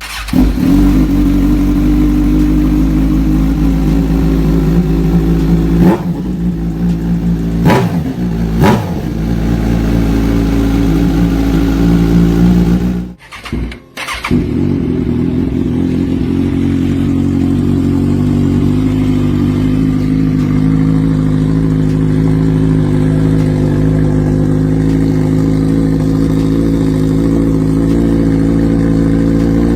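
Modified Kawasaki Z1000's inline-four engine idling, blipped for a few sharp revs about six to nine seconds in. The sound cuts out briefly about halfway, then the engine idles steadily.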